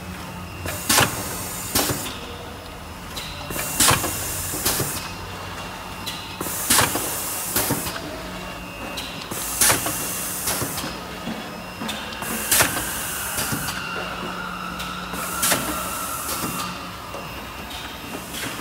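HM HSP-6 filter-welding K-cup capsule filling and sealing machine running through its cycle: a steady hum, with a pair of sharp clacks and a hiss between them repeating about every three seconds as the machine indexes.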